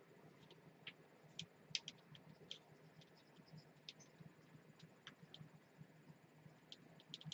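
Faint, irregular light clicks and ticks of a phone charger cable being handled and taken out of its clip, over a quiet low hum.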